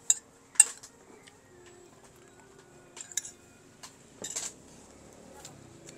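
Utensils clinking and knocking against dishes: about seven short, sharp clinks, the loudest two in the first second and a cluster about four seconds in.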